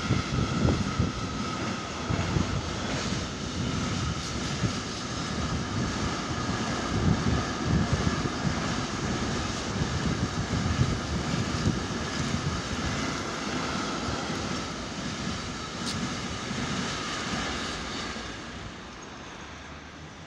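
Combined-transport freight train of container wagons rolling past: a steady rumble and clatter of wheels on rails with a faint steady whine, fading away near the end as the last wagons go by.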